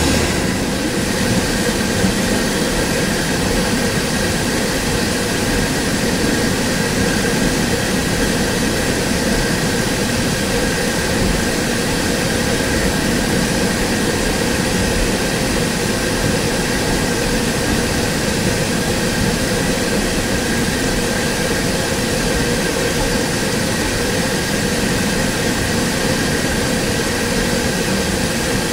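Steady engine drone from a train standing at a platform, a constant hum with no wheel rhythm.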